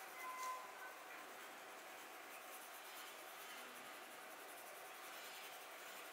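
Brown colored pencil scratching faintly across paper in short shading strokes. A brief high tone with a click comes about half a second in.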